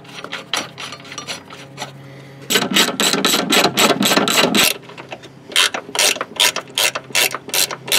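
Ratcheting wrench clicking as the strut top-mount bolts are run down into the strut tower: scattered clicks at first, a quick dense run of clicking in the middle, then slower, separate clicks of short strokes.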